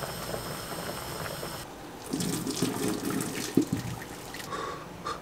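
A saucepan of potatoes at a rolling boil, then, after a cut, the hot cooking water poured off from the saucepan into a kitchen sink, splashing down the drain.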